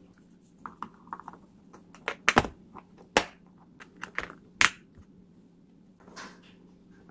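Snap-lock lids being pressed onto small plastic food containers and their side latches clicked shut: a series of sharp plastic clicks and taps, the loudest about two and a half and four and a half seconds in.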